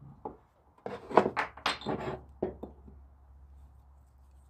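A quick run of sharp knocks and clicks from hard objects, about eight in two seconds, over a faint steady low hum.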